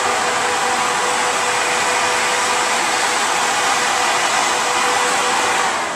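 The two electric fans of an AFCO dual-fan heat exchanger running steadily on the intercooler system, a constant rush of moving air with a faint steady hum.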